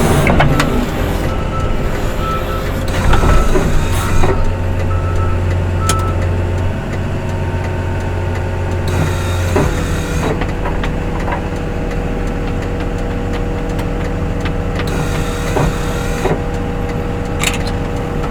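Snow-removal vehicle's diesel engine running steadily. Its note shifts about ten seconds in, and a run of short beeps sounds during the first few seconds.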